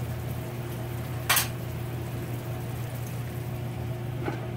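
Sauce simmering in a frying pan over a steady low hum, with a sharp clack about a second in and a lighter clink near the end as a glass lid is set onto the pan.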